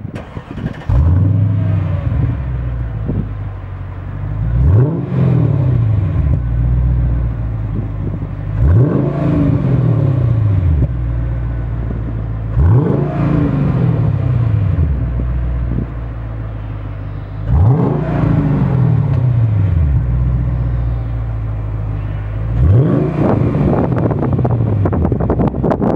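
Mercedes-Benz W219 CLS 55 AMG's supercharged V8 through a MEC Design aftermarket exhaust in its loud "Earthquake" version, idling with the car standing still and blipped six times. Each rev climbs sharply and falls back to idle.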